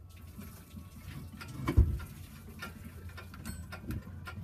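Scattered clicks and knocks of metal tools and parts during work on a motorhome's engine, with one louder thump about two seconds in, over a low steady hum.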